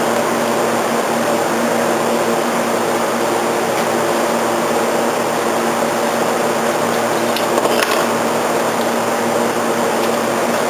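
Steady whirring hum of a fan-like machine, with a few faint clicks about three-quarters of the way through.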